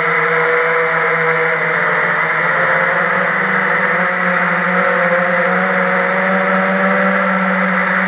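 A homebuilt FPV quadcopter's electric motors and propellers whirring steadily, picked up by its onboard camera, the pitch drifting slightly up and down with the throttle.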